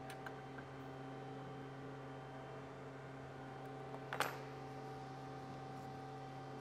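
Steady electrical hum, with a single short click about four seconds in while hands work a hex wrench on the reel mower's bolts.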